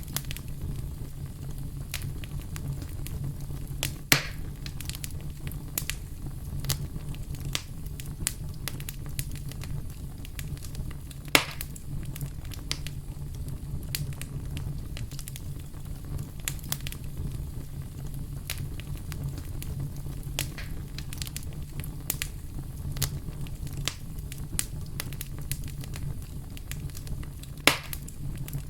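A fireplace fire crackling, with a steady low rumble under a constant scatter of small clicks. Three loud pops stand out: about four seconds in, about eleven seconds in, and near the end.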